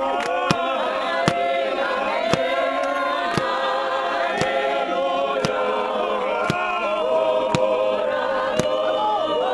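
A group of men's voices singing a hymn unaccompanied in harmony, with a sharp beat about once a second keeping time.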